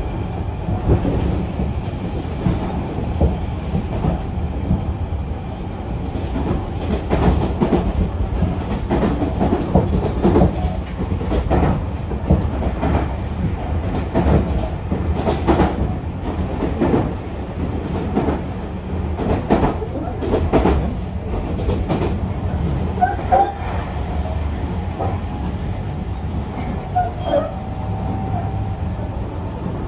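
Running noise heard inside a Tobu 60000 series electric commuter car at speed: a steady low rumble of wheels on rail, with a recurring clickety-clack as the wheels cross rail joints.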